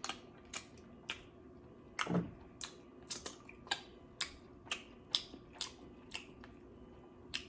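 Close-up mouth sounds of someone chewing food: irregular wet clicks and smacks, about one or two a second, with a short closed-mouth "mm" about two seconds in.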